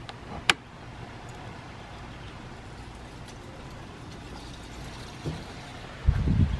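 A single sharp click about half a second in as a thumb presses the small plastic reflector cover into the van's brake-light housing, over steady low background noise. Just past six seconds there is a brief low rumble.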